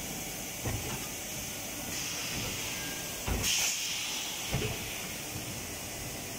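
Extrusion blow molding machine cycling: a hiss of compressed air starts about two seconds in and is sharpest around halfway through, with a few low thuds from the moving mold carriage and clamp over steady machine noise.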